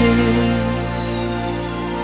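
Song music: a held sung note fades out under a sustained instrumental chord.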